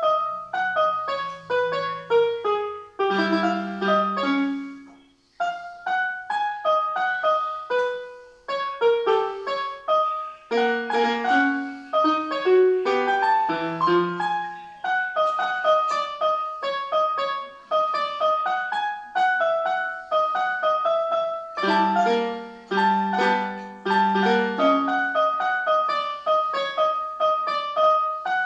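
Solo piano playing a busy run of melody notes over lower chords, with a brief pause about five seconds in.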